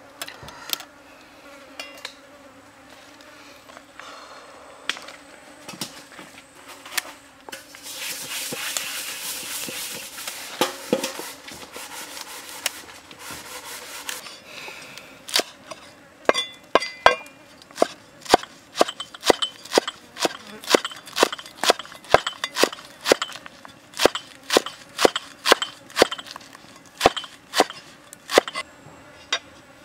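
Leaves rustling and tearing as they are stripped by hand. About halfway through, a steel cleaver starts chopping the leafy greens on a wooden chopping block, with sharp knocks about twice a second.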